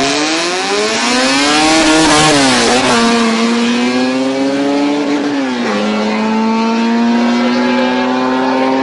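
Drag-racing car engines at full throttle off the start line, revving up through the gears. The pitch climbs, drops sharply at an upshift about three seconds in and again about five and a half seconds in, then climbs once more.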